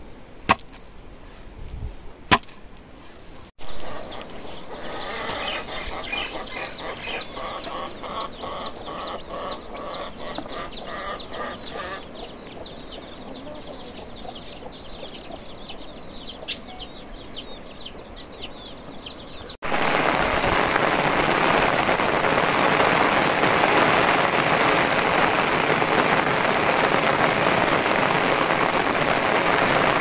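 A few sharp knocks in the first seconds, then chickens clucking with rapid high cheeping calls for a quarter of a minute, then a sudden switch to a loud steady hiss about two-thirds of the way through.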